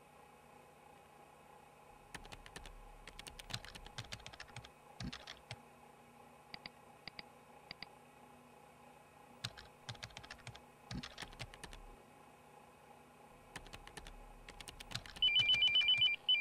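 Computer keyboard being typed on in irregular bursts of clicks, with three short faint beeps in the middle. Near the end a telephone's electronic ringtone starts, a rapidly pulsing two-tone trill and the loudest sound here.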